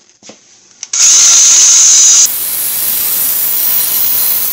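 Cordless power tool spinning a wire brush against rusty steel on a car's front steering knuckle. It starts about a second in with a loud, harsh high hiss, eases a little after another second, and carries on steadily.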